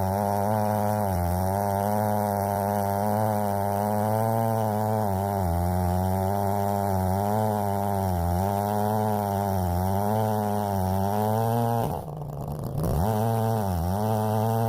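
Two-stroke chainsaw on an Alaskan chainsaw mill running under load while ripping through a log, its engine note wavering slightly as the cut goes on. Near the end the pitch and level dip sharply for under a second, then pick back up.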